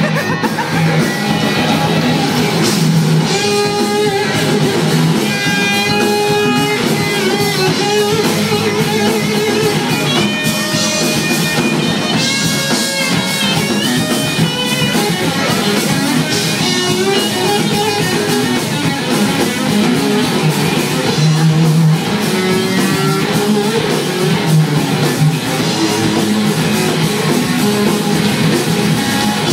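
Live rock band playing loud: an electric guitar lead with bending notes over bass and drums, with no singing.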